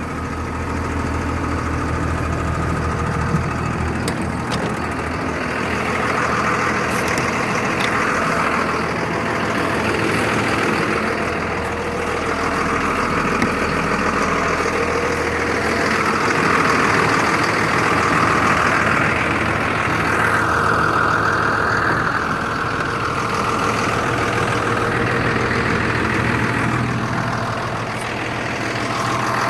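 Diesel engine of a 1996 Blue Bird bus idling steadily, still cold just after a cold start.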